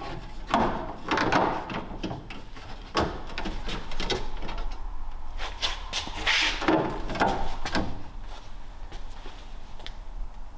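Irregular knocks, clicks and short scrapes of 3D-printed plastic brackets being handled and test-fitted against a car's metal support bar, over a steady low hum.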